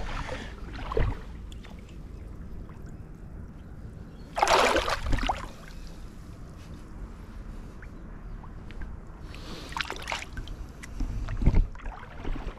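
Shallow water splashing and sloshing as a small bream is released by hand, with one louder splash about four and a half seconds in and smaller splashes near the start and end.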